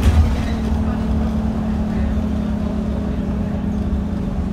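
Scania double-decker bus on the move, heard from inside the passenger saloon: a steady low drone of engine and road noise, with a brief knock right at the start.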